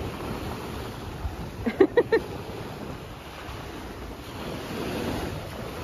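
Small waves washing onto the shore with wind buffeting the microphone. About two seconds in, a brief voice sound of a few short cries cuts through.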